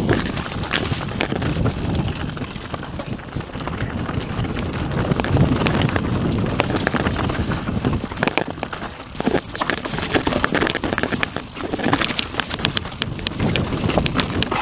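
YT Industries Capra AL Comp mountain bike descending a rocky trail at speed: tyres rolling over loose stones, with frequent sharp knocks and rattles from the bike, under steady wind rush on the microphone.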